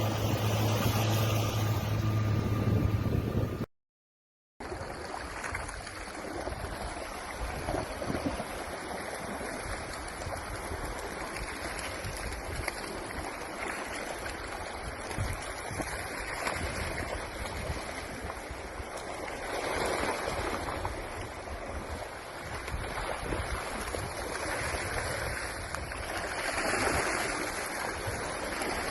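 Rushing floodwater, a steady even roar that swells now and then. It follows a cut with a second of silence, before which a loud low hum with wind noise runs for the first few seconds.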